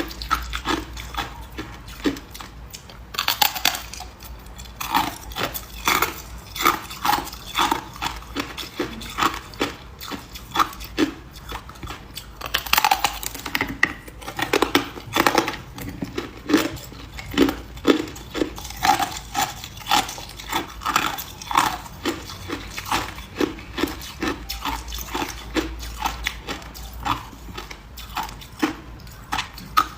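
Ice being bitten and chewed close to the microphone, a run of sharp, irregular crunches about one or two a second, with brief pauses between bouts.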